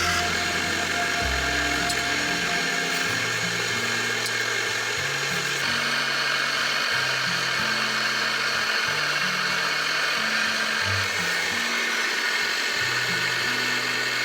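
Background music with a stepping bass line over a steady, loud rushing hiss that cuts off abruptly at the end.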